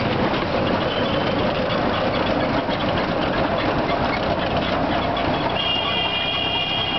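Auto-rickshaw engine running under way, with steady road and traffic noise. Near the end a vehicle horn starts and holds.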